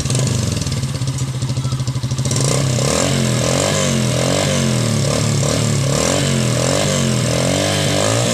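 Bajaj CT 125 single-cylinder four-stroke motorcycle engine running through a gutted ("kalkal") muffler with its inner baffling removed. About two seconds in it gets louder, and its pitch then rises and falls again and again as the throttle is blipped.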